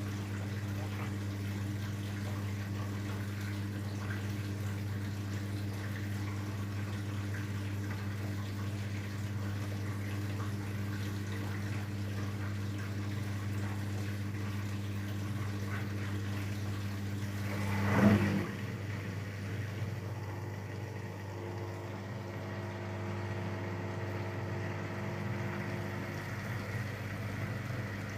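Daewoo DWD-FT1013 washing machine in the cooldown stage of a 95°C cotton drum-clean cycle: a steady low hum with water moving. About two-thirds of the way through, a short loud surge rises and cuts off sharply, and the machine then runs on with a different hum.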